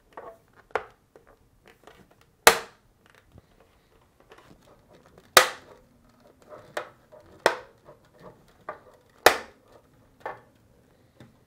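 Plastic locking tabs of a refrigerator dispenser shield's trim piece snapping into place one after another as the trim is pressed onto the shield. There are several sharp clicks a second or a few apart, three of them louder than the rest.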